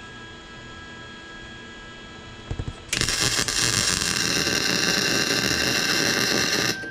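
Electric welding arc crackling and hissing in one steady run of about four seconds, starting about three seconds in and cutting off sharply. It is a weld being laid on a broken cylinder-head stud to extract it.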